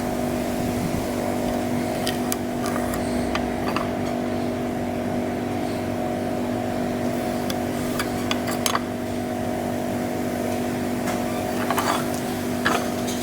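A steady motor hum holding several fixed tones, with scattered light clicks and knocks over it.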